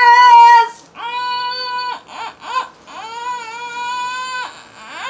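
A woman's wordless, high-pitched drawn-out vocal sounds, like sung 'oooh's, while she hugs a pillow: a loud wavering note at the start, then two long steady held notes with two short ones between them, and a shorter one near the end.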